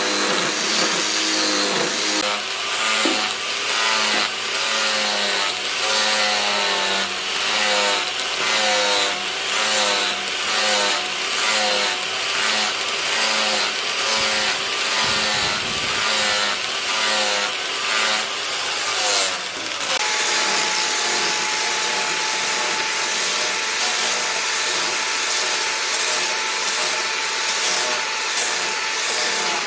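Rhythmic back-and-forth strokes of a hand tool working wood, such as sawing or rasping, about two strokes a second; about two-thirds of the way through it gives way to a steadier tool noise with a thin, even whine.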